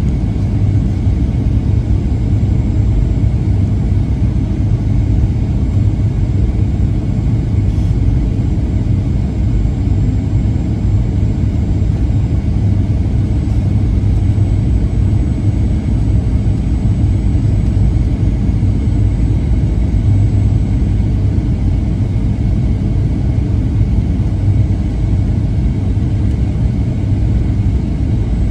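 Steady low rumble of engine and airflow noise inside the cabin of a Boeing 737-900ER, with a faint high whine above it.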